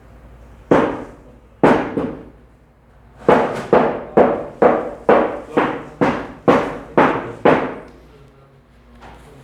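Butcher's cleaver chopping meat on a wooden block: two single heavy chops, then a run of about ten rapid chops at roughly two a second, cutting mutton into small pieces.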